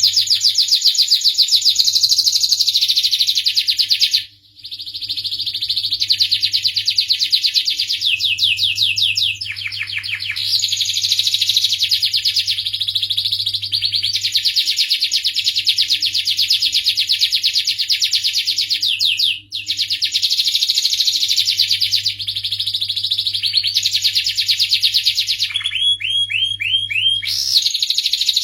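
Starblue canary singing a long, continuous song of rapid trills and rolls, broken by two brief pauses, with a short run of separate falling notes near the end. A faint steady low hum runs underneath.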